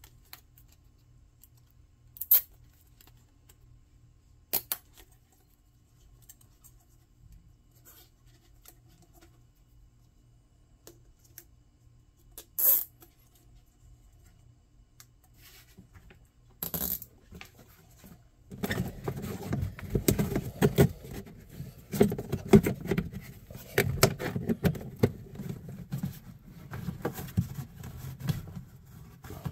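Hand-work with flexible heater ducting and its plastic fittings: a few sharp clicks and taps several seconds apart, then about two-thirds in a dense, continuous run of rattling and rustling.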